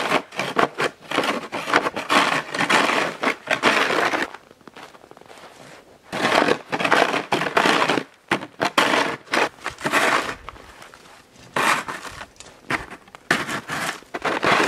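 A snow shovel scraping over packed snow and ice on a gravel driveway, pushing and scooping snow in repeated strokes of a second or two each, with short pauses between them.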